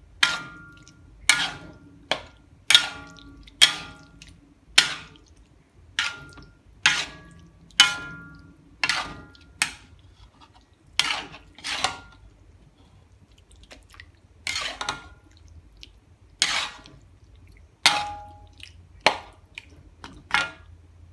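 A person coughing repeatedly: about twenty short, sharp coughs, mostly about a second apart, with a short pause about two-thirds of the way through.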